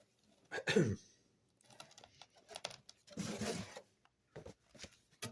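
Comic books being pulled out of a cardboard shipping box and handled: paper and cardboard rustling and sliding, with a short louder sound under a second in and a longer rustle just past the middle.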